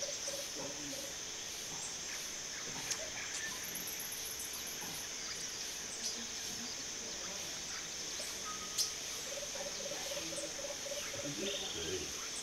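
Rainforest ambience: a steady high insect drone. A bird gives a short run of low hollow notes, evenly spaced at about eight a second, at the start and again about nine seconds in, with a few faint calls and a couple of sharp clicks.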